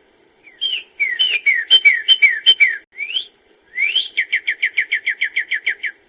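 A songbird singing clear whistled phrases: a run of down-slurred whistles, a rising note, then a fast trill of about fifteen falling notes.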